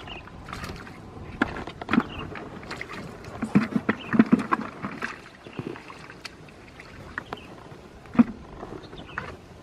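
Irregular splashing and knocking in water, several sharp hits at uneven intervals, with a cluster of them about four seconds in and a single loud one near the end.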